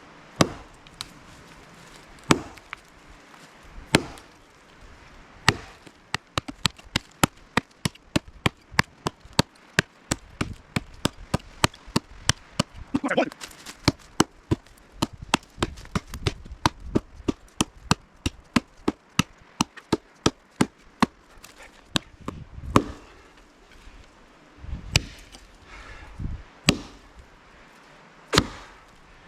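An axe chopping through a log against the clock: a few spaced blows, then a fast run of chops about two to three a second, slowing to spaced blows again near the end.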